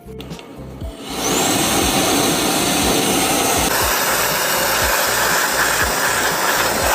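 A loud, steady rushing noise starts abruptly about a second in, with a brief rising whine at its onset, over background music with a steady low beat.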